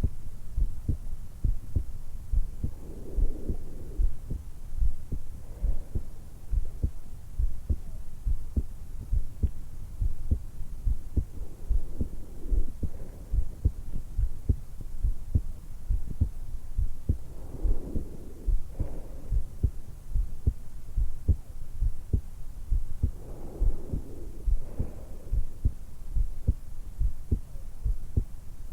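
A woman's heartbeat and breathing, picked up by a stethoscope microphone pressed to the hollow at the base of her throat just after waking: a steady run of low heart thumps, with soft breaths coming and going every few seconds.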